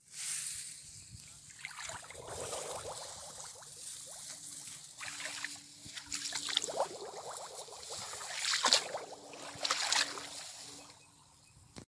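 Shallow water in a flooded rice paddy sloshing and splashing irregularly, with a louder splash a little before the end.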